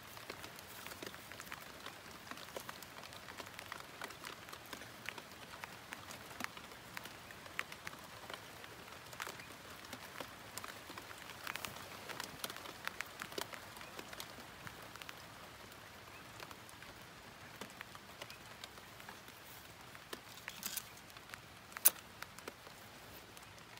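Light rain pattering, with scattered small clicks of snap ring pliers and a snap ring being worked into a tractor's front axle knuckle; one sharp metallic click near the end.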